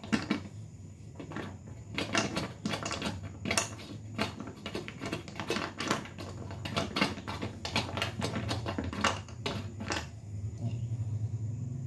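Silicone spatula stirring still-solid chocolate pieces in a stainless-steel saucepan: irregular light clicks and taps of the pieces against the metal, several a second, over a low steady hum.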